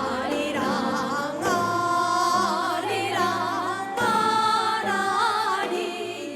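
Gukak-style music, a melody sung with wide, wavering vibrato over instrumental accompaniment.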